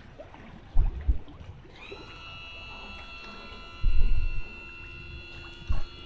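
Wind gusts buffeting the microphone in short rumbling bursts. From about two seconds in, a steady high-pitched whine of several tones holds level underneath.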